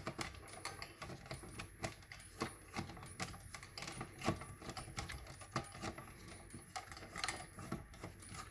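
Irregular light clicks and knocks of a Notifier NBG-10 fire alarm pull station being handled to reset it. A faint high-pitched chirp repeats steadily underneath.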